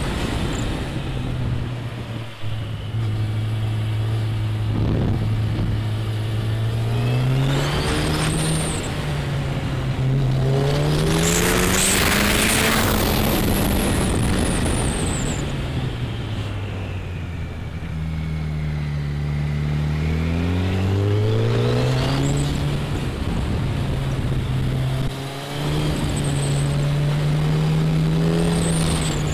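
Motorcycle engine heard from the rider's seat, the revs climbing and falling several times as the bike works up the winding road, with brief drops about two seconds in and again near the end. A louder rush of noise swells and fades in the middle.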